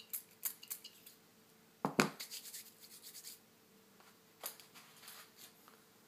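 A few quick squirts of a small pump spray bottle of screen-protector solution. A single loud knock comes about two seconds in, followed by light scratchy rustling and handling sounds.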